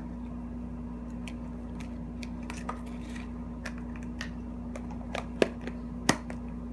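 Cloud slime being squeezed and pressed into a clear plastic tub: scattered small clicks and crackles, with two sharper clicks a little after five and six seconds in, over a steady low hum.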